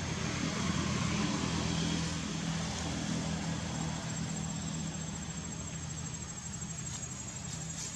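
A motor vehicle's engine running with a steady low hum that slowly fades, over a soft hiss.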